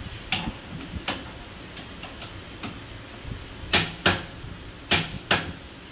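Sharp clicks from a 1/2-inch drive click-type torque wrench pulled clockwise, the click marking that it has reached its set torque. A couple of faint clicks come first, then two pairs of loud clicks, each pair about a third of a second apart.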